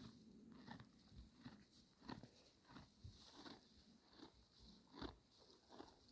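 Gotland ponies chewing and biting hay, a steady run of soft crunches about two a second.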